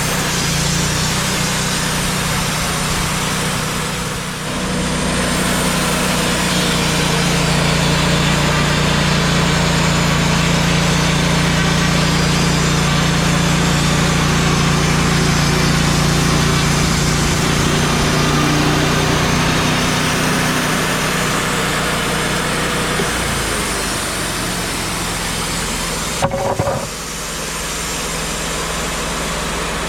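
Wood-Mizer portable band sawmill running steadily, its band blade cutting through a black walnut log. Near the end the sound changes, and after a brief knock the engine settles to a lower, steadier running.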